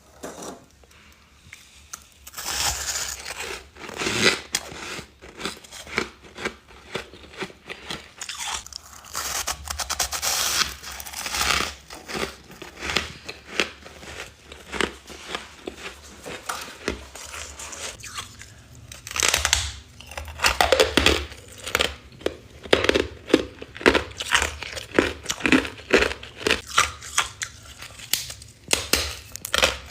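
Close-up bites and chewing of freezer frost ice, many sharp crunches in quick succession, getting louder and quicker in the second half.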